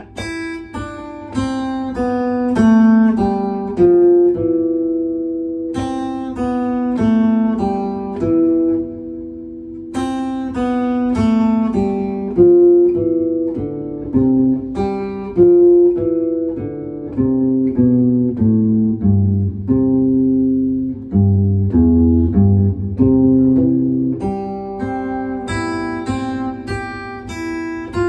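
Acoustic guitar played fingerstyle through the C major chord and scale exercise: single notes plucked in a steady running line up and down the scale, with chords struck now and then.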